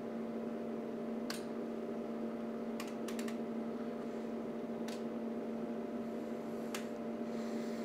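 A steady low hum runs throughout, with about six sharp clicks from the test bench controls as the signal level is set, three of them in quick succession around the third second.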